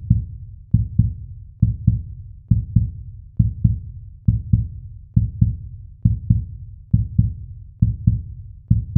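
Heartbeat sound effect: steady double thumps, lub-dub, at about 70 beats a minute, low in pitch.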